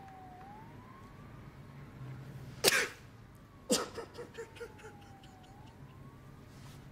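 A man breaking down crying: two sharp sobbing gasps about a second apart near the middle, followed by a few short broken sobs. Under it a faint distant siren wails slowly down and back up, twice.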